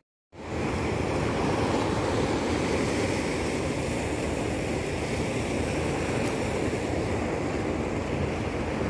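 Sea surf washing over a rocky shoreline, a steady rushing that cuts in after a brief gap.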